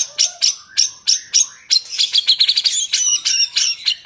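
White-rumped shama (murai batu) singing loudly: a run of sharp, high, repeated notes that quickens into a fast trill about two seconds in.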